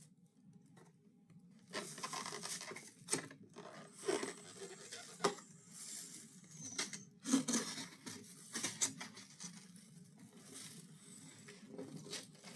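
Takeout food packaging being handled: plastic rustling, tearing and crinkling broken by sharp clicks and taps. It comes in irregular bursts starting about two seconds in.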